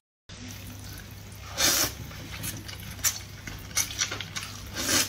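Noodles slurped from a bowl of broth: one long, wet slurp about a second and a half in, then several shorter slurps.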